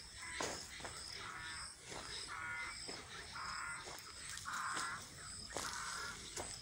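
A bird calling five times, about once a second, each call short, over footsteps on dry ground.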